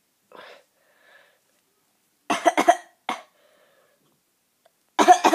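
A boy with a bad cough coughing in short bouts: a cluster of three coughs about two seconds in, a single cough just after, and another loud bout near the end.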